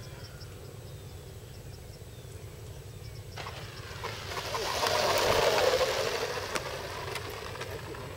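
68 mm electric ducted fan of a radio-controlled model jet rushing past close as the model rolls along the asphalt. It starts suddenly about three and a half seconds in, swells to its loudest about two seconds later, then fades, with scattered small clicks.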